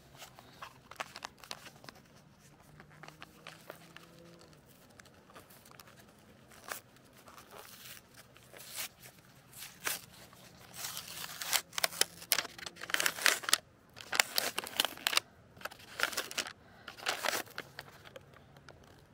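Sandwich packaging being torn open and handled: a run of crinkling, tearing crackles, sparse at first, then denser and louder in the second half.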